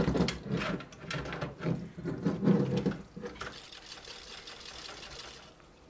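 Cooler Master MasterLiquid 240 AIO cooler with its pump running and humming while the radiator is shaken by hand, coolant sloshing and rattling through the loop to work out trapped air after refilling. The shaking is loudest for the first three seconds and then dies down.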